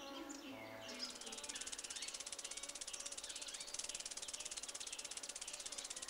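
Faint, fast, even insect trill of cricket-like chirring, starting about a second in and running on steadily, as the tail of a music cue fades out in the first second.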